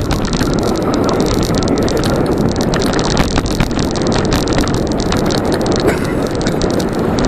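Wind buffeting the microphone of a camera on a moving bicycle, with road and tyre noise underneath: a steady, loud rush.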